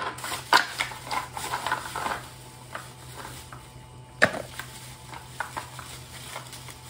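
Small clicks and taps from a plastic baby bottle as a baby macaque sucks from it and handles it, clustered in the first two seconds, with one sharper click about four seconds in. A low steady hum runs underneath.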